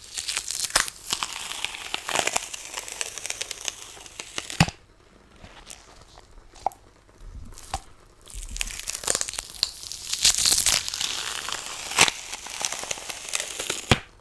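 Sticky sheet of a lint roller crackling and peeling as it is worked, in two long spells of a few seconds each with a short quieter pause between them, sharp clicks scattered through.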